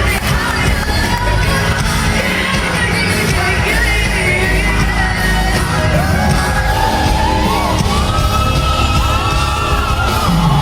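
Live pop ballad with a band and a female lead singer, recorded from within a stadium crowd. Audience members yell and whoop over the music, and from about six seconds in the singer carries a high, held line with bending runs.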